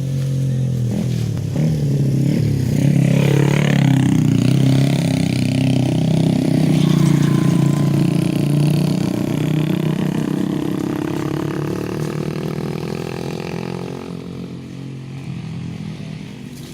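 A small engine running hard and loud, its pitch rising slowly and easing off again toward the end.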